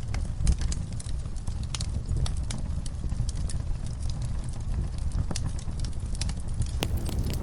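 Wood fire crackling in a fireplace: scattered, irregular pops and snaps over a low steady rumble, growing busier and louder near the end.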